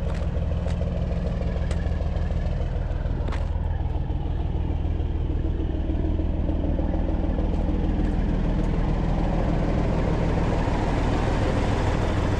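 Heavy diesel engine idling steadily, with a few light clicks.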